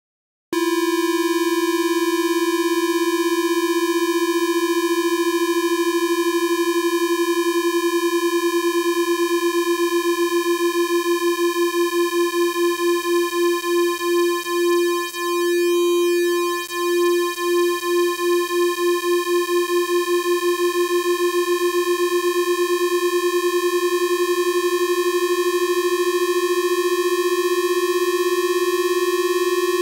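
Two synthesized square-wave beeps, one held at C4 and one gliding slowly up from B3, sounding together. They beat against each other in a fast wavering that slows to a steady tone about halfway through as the two pitches meet, then quickens again as the rising tone passes above.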